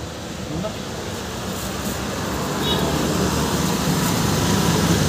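Street traffic noise: a steady rumble of passing vehicles and engines, growing louder about halfway through.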